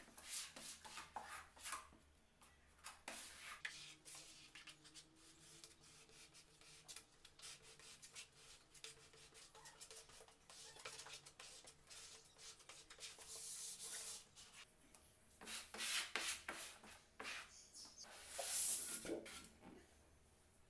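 Hand spreader scraping white adhesive across the back of a decorative laminate sheet in quick, repeated strokes, then the sheet rubbing and rustling against the plywood as it is handled and lifted, loudest near the end.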